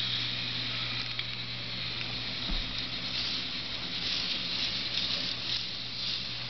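Motorized K'Nex roller coasters running: a steady motor hum under a continuous fine clatter of the plastic lift chains, with a soft knock about two and a half seconds in.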